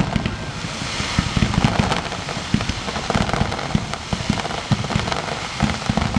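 Fireworks display: aerial shells bursting in rapid succession, a continuous barrage of deep booms overlapping one another, with fine crackling on top.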